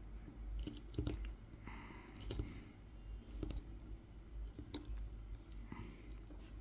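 The tip of a Mora 106 carving knife scoring fine lines into a wooden spoon: short, faint scraping cuts and small clicks as the blade drags through the wood grain.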